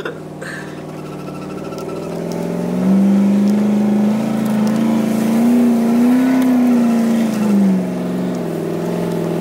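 A vehicle engine revving: it climbs about three seconds in, holds high with a wavering pitch, then drops back near the end.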